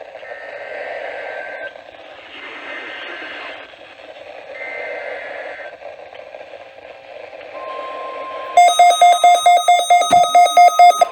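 Three faint SAME digital header bursts from a distant NOAA Weather Radio station, heard through radio noise. Then the steady warning tone near 1 kHz starts, and in the last few seconds a weather alert radio's alarm sounds as loud, rapid beeping that announces a severe thunderstorm warning.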